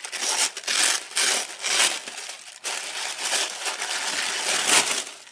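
Lime-green tissue paper crinkling and rustling as it is pulled open and unwrapped by hand, in an irregular run of crackly bursts.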